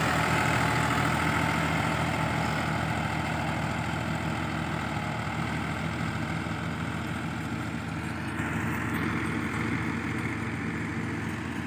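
NH Dabung 85 tractor's diesel engine running steadily, slowly growing a little quieter.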